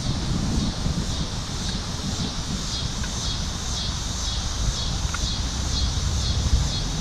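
Wind rumbling on the microphone, with a steady high-pitched pulsing about twice a second above it.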